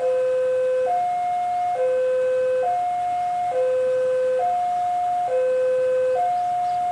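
Railway level-crossing warning alarm sounding as a train approaches: an electronic two-tone signal alternating steadily high and low, each tone just under a second long.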